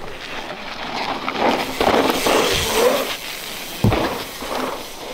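Mountain bike riding past on a loose dirt trail: tyres rolling and scrabbling through the dirt, louder as it passes, with a single thud just before four seconds in.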